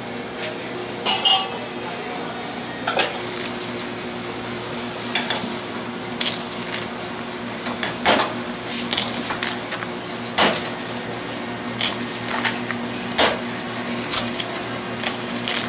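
Metal scoop clinking against a bowl as balls of pineapple flesh are scooped out and tapped into it. There is a sharp clink every two to three seconds, with softer scraping between, over a steady low hum.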